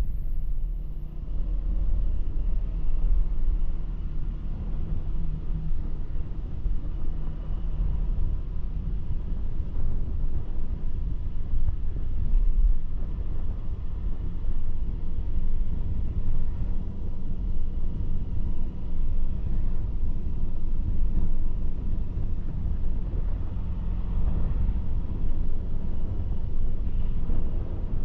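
Vehicle driving along a road: a steady low rumble of engine and road noise that holds through the stretch.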